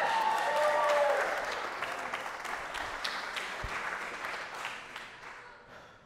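Gallery audience applauding, with a few cheers in the first second; the clapping fades away over the last couple of seconds.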